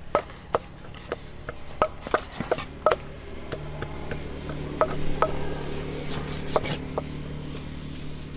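Cleaver slicing through seared beef and knocking on a wooden chopping block: a quick, uneven run of sharp knocks in the first three seconds, then fewer, more spaced ones.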